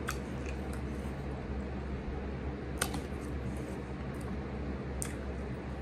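A person chewing a mouthful of shrimp taco, with a few sharp mouth clicks, over a steady low hum.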